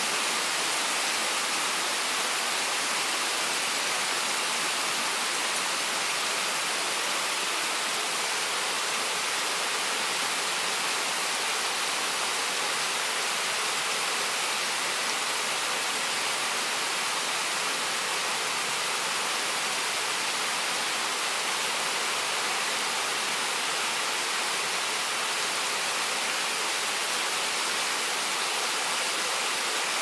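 Steady rain falling in an even hiss, with no thunder.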